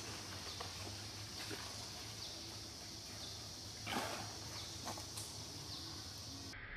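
Forest ambience: a steady high-pitched insect drone with a short falling chirp repeating about once a second, and a few light clicks and rustles, the loudest a brief rustle about four seconds in. Near the end the sound cuts to a different, lower-pitched insect drone.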